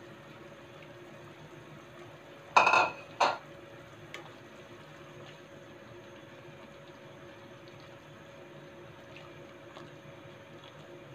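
Two sharp clanks of cookware a little over two and a half seconds in, the first ringing briefly. Then a pot of chicken noodle soup simmering while a plastic spoon stirs the noodles, with a few small knocks and a steady faint hum underneath.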